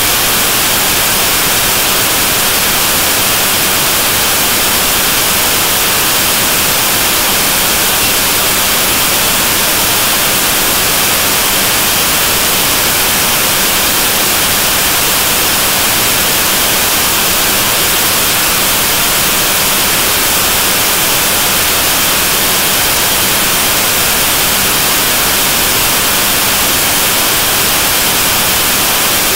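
Constant loud static hiss, even and unchanging, with no rhythm or separate sounds in it.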